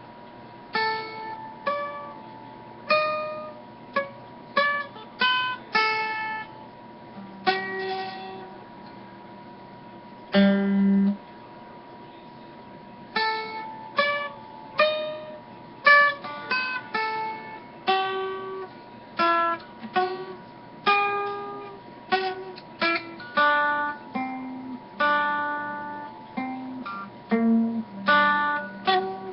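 Freshly reassembled mandolin plucked note by note, with single notes and short phrases at irregular spacing, some left ringing for a second or more. A faint steady high tone runs underneath. The strings sit about 5 mm above the frets at mid-fingerboard, action high enough to make it very hard to play.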